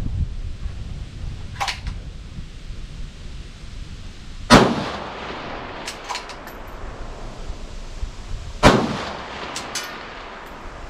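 Two rifle shots about four seconds apart, each a sharp crack with a long fading echo, with lighter clicks between them. Wind rumbles on the microphone.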